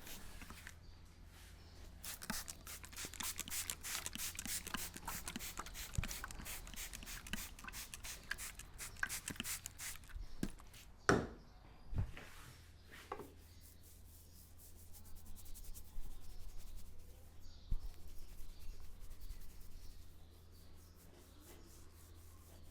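Fingers rubbing and scratching briskly through hair and scalp in a head massage, in quick rasping strokes. The rubbing stops for a moment about halfway through for three sharp knocks, the first the loudest, then starts again.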